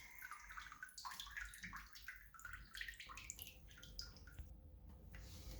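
Faint water trickling and dripping into a bathtub after the shower valve is turned off, a light irregular patter that thins out about four and a half seconds in.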